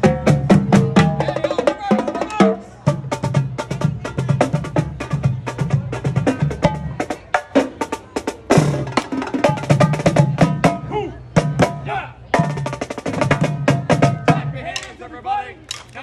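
A marching drum line playing a fast cadence on snare drums and tenor drums: rapid stick strokes, rolls and sharp stick clicks, with brief breaks. The drumming thins out shortly before the end, leaving crowd voices.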